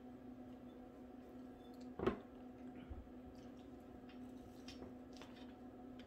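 A person eating quietly: soft, wet chewing and small clicks, with one brief knock about two seconds in, over a steady low hum.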